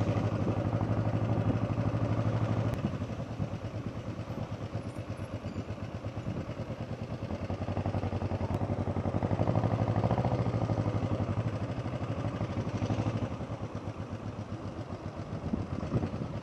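Motorcycle engine running at low speed through town streets. It eases off about three seconds in and pulls harder again around nine to ten seconds.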